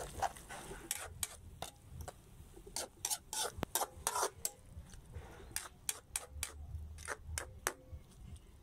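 Metal spatula scraping and clinking against a wok while stir-frying cabbage, in irregular strokes, busiest in the middle.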